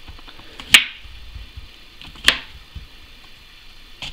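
Chef's knife cutting through bitter gourd and striking a wooden cutting board: two sharp knocks about a second and a half apart, with a few lighter taps after.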